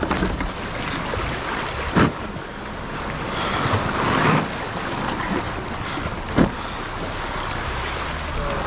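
Sea water washing and wind buffeting the microphone, with a low steady rumble underneath. Two sharp knocks stand out, about two seconds in and again about six and a half seconds in.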